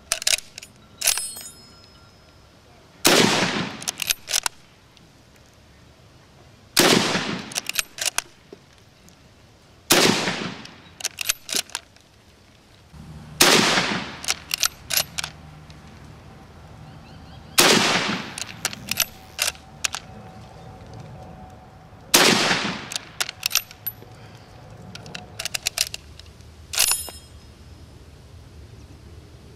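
.303 SMLE Lee-Enfield rifle fired six times, each shot a few seconds apart, with metallic clicks of the bolt being worked between shots. A quick run of clicks at the start as the rifle is loaded.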